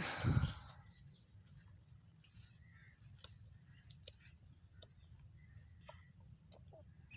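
A short rumbling burst of noise on the microphone in the first half-second. After it, a quiet pond-side background with faint scattered bird chirps and small clicks.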